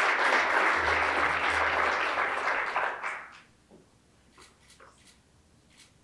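Audience applauding, the clapping dying away about three seconds in, followed by a few faint clicks.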